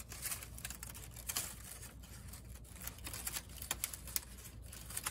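White printer-paper strips of a paper snowflake rustling and crinkling faintly as hands adjust them, with scattered light irregular ticks.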